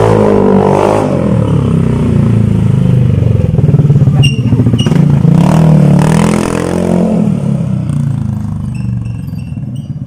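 Yamaha Aerox scooter's single-cylinder four-stroke engine running loud through an aftermarket Yoshimura muffler, revved twice with the pitch rising and falling, easing off near the end.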